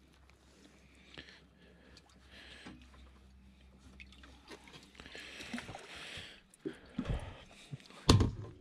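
Rustling and handling noise with a few dull, loud knocks near the end, over a faint low hum that stops about two-thirds of the way through.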